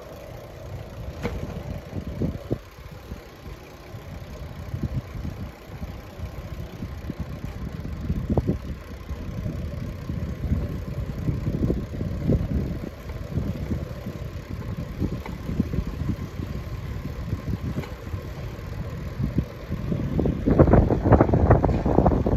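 Low, uneven rumble of wind buffeting the microphone while riding along a street, with a louder stretch of buffeting near the end.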